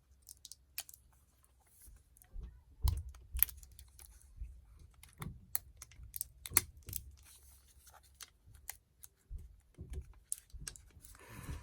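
Irregular light clicks and soft knocks of a replacement hard drive being handled and fitted into a Lenovo ThinkPad T460's drive bay.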